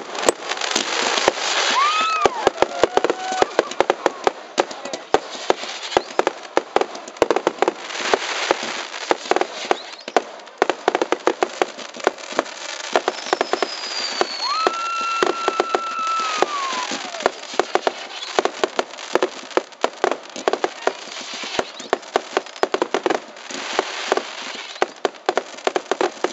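Fireworks going off in rapid succession: dense crackling and popping bangs throughout, with a few whistles, one held steady for about two seconds near the middle, and a thicker flurry of bangs near the end.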